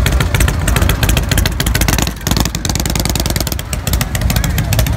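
Custom chopper's V-twin engine running loudly as the motorcycle pulls away at low speed, its exhaust firing in rapid pulses. The engine eases off briefly about two seconds in, then picks up again.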